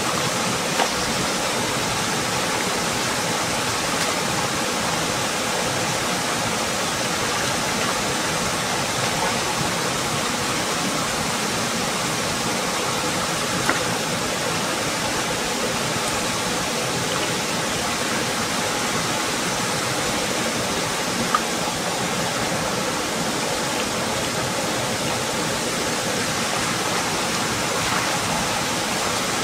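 Shallow rocky stream rushing steadily, water spilling over a small cascade. Three brief sharp knocks cut through it, about a second in, near the middle and about two-thirds through.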